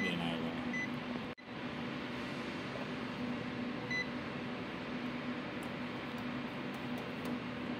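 Two short, high beeps from a UNI-T UT204+ digital clamp meter, about a second in and again about four seconds in, as it is worked through its capacitance and diode test functions. A steady low hum and hiss run underneath.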